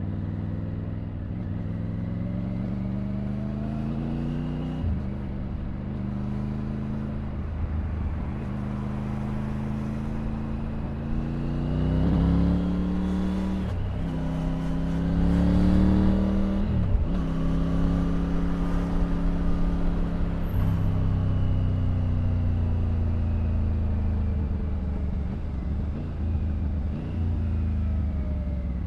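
Triumph Tiger 900's inline-three engine pulling hard through the gears: the revs climb, then drop back at each of several upshifts, loudest around the middle. In the last several seconds the engine eases off, its pitch falling steadily.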